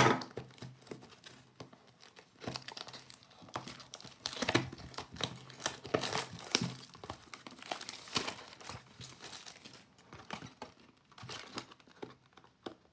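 Plastic wrapping crinkling and tearing in irregular crackles as a sealed trading-card booster box is unwrapped and opened.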